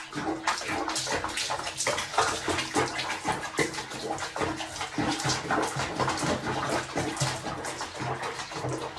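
Water sloshing and splashing in a basin of soapy bathwater as a cat moves in it, an irregular run of small splashes.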